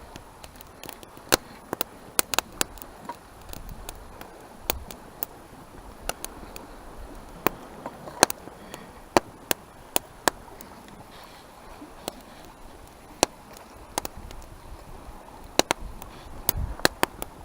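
Wood fire crackling, with irregular sharp pops scattered through a faint steady background.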